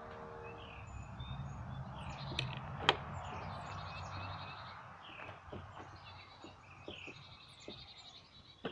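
Small birds chirping and twittering again and again in the background, over a low steady outdoor hum. A few light clicks are heard, and the sharpest comes about three seconds in.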